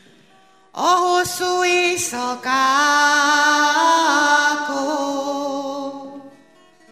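A woman singing one long, held phrase of a slow Hungarian song into a microphone. She comes in about a second in, with a few small shifts in pitch, and the note fades out near the end.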